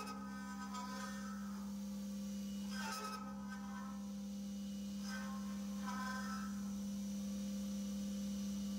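CNC mill cutting aluminum with a long half-inch end mill deep in a hole: a steady low tone, broken by short ringing squeals at the start, about three seconds in, and again about five and six seconds in. The squeals are the cutter chattering because it is long and deep in the cut.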